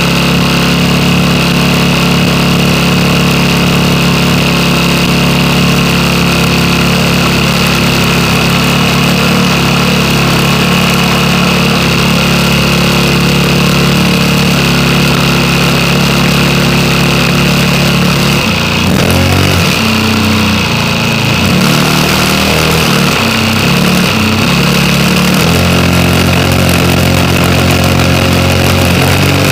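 Sig Kadet Senior RC model airplane's engine running loud and steady, heard from a camera on the airframe. About two-thirds of the way through, its pitch rises and falls for several seconds as the throttle is worked, then it settles steady again.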